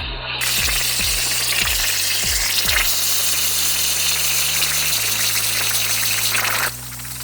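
Background music with a deep bass line and kick drums, over a steady hissing power tool cutting metal that eases off near the end.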